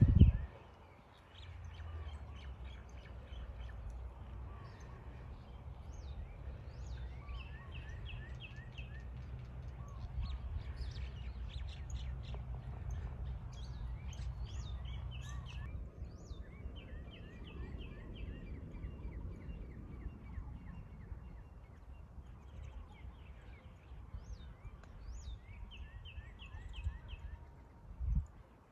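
Birds calling in repeated short chirping trills over a low rumbling noise, with a sharp knock right at the start and a duller thump near the end.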